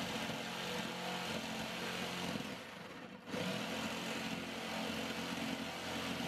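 Skil corded jigsaw running steadily as its blade saws through a ZIP System OSB sheathing panel, a continuous buzzing motor and rasping cut. The sound drops briefly about three seconds in, then carries on.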